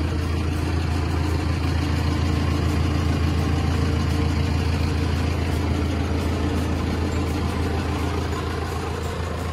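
Mitsubishi Canter truck's engine idling steadily, an even low rumble.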